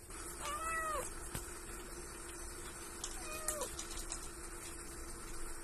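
A Scottish kitten mewing twice, two short high calls that rise and fall, the second about three seconds after the first.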